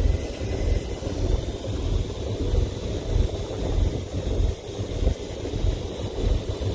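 Wind buffeting the microphone on a boat at sea: a gusty, uneven low rumble.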